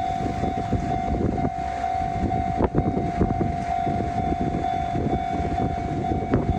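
Japanese level-crossing warning bell ringing, its single steady tone pulsing a few times a second, over the low rumble and scattered clicks of a train on the rails.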